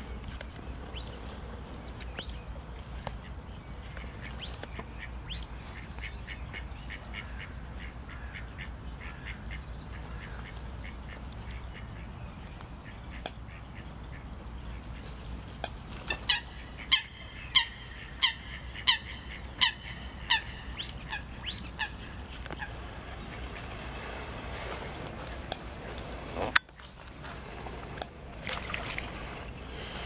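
Ducks calling on the water: scattered short calls, then a run of sharper, louder calls about two a second, over a steady low background rumble.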